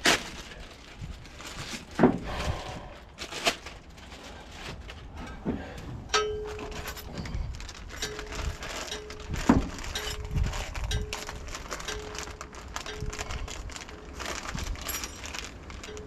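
Steel fifth wheel hitch parts clanking and clinking as they are handled and fitted, with several sharp metal knocks. From about six seconds in, a low beep repeats over and over in the background.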